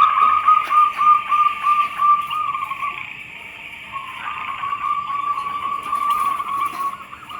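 Zebra dove (perkutut) cooing: a run of quick, rolling coos at one pitch. It breaks off about three seconds in and starts again a second later, over a steady high hiss.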